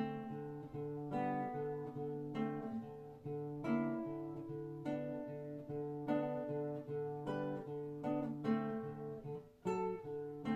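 Classical nylon-string guitar played fingerstyle: single notes and chords plucked about once a second over held bass notes, with a brief break just before the end.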